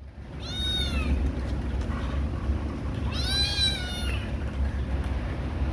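Kitten meowing twice in high-pitched calls: a short falling one, then a longer one, calling for its mother to nurse. A steady low rumble runs underneath.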